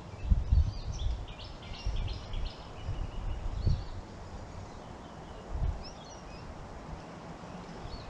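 Small birds chirping and twittering in quick high runs, busiest in the first few seconds and again briefly near six seconds. Low gusts of wind buffet the microphone underneath and make the loudest moments.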